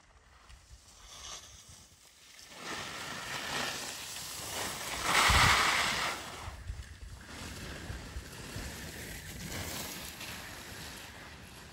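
Telemark skis carving through snow: a swishing hiss that builds as the skier approaches, is loudest as they pass close about halfway through, then eases to a lower, steady hiss.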